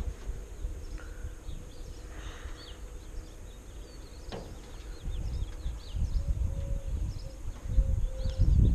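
Small birds chirping: many short, high chirps scattered throughout, over a low rumble on the microphone that grows louder near the end.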